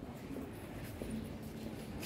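Background noise of a large store: a steady low rumble with no distinct event.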